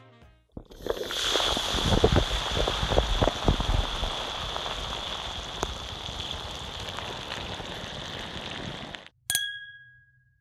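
Street ambience: a steady hiss of outdoor noise with low, gusty rumbles in the first few seconds. It cuts off abruptly about nine seconds in, followed by a short, bright chime.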